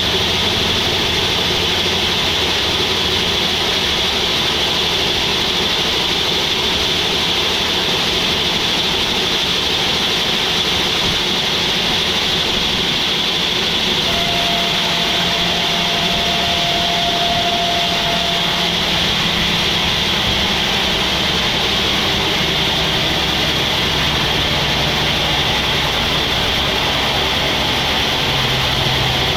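Sawmill machinery running with a loud, steady noise. A steady whine comes in for about five seconds near the middle.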